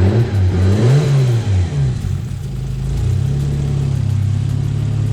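Toyota Supra's twin-turbo 2JZ-GTE inline-six, running on freshly changed spark plugs, revved in several quick throttle blips over the first two seconds, then settling back to a steady idle from about three seconds in.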